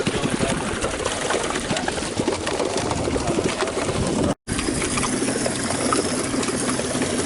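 Water splashing and churning beside a fishing boat, full of quick irregular ticks. The sound drops out for a moment about four seconds in, and a low steady hum is heard after it.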